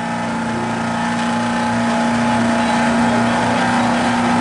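Antique fire truck's engine running at steady revs, getting louder over the first few seconds, then holding.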